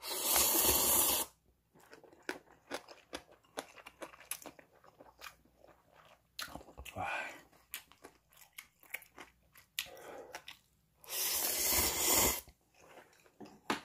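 Close-up eating: chewing on noodles and green onion kimchi with many small wet clicks, broken twice by a loud slurp lasting a second or so, right at the start and again near the end.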